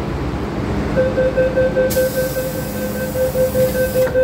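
MTR M-Train door-closing warning: a rapid, steady beeping tone starts about a second in and keeps going as the doors close. A high hiss joins it about two seconds in and cuts off with a knock near the end as the doors shut. Under it all is the stopped train's steady low hum.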